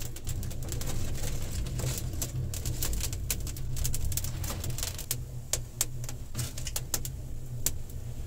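Wood fire of twigs and sticks crackling in a rock-cut hearth: many irregular sharp pops over a steady low rumble.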